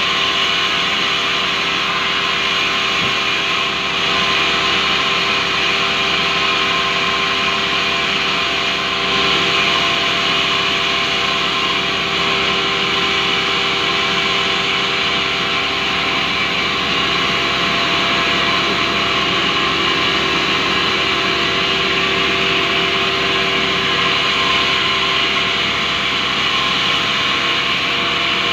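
Large vertical band saw running steadily and ripping lengthwise through a big rubberwood log, a continuous loud hum with a hissing rasp of the blade in the wood.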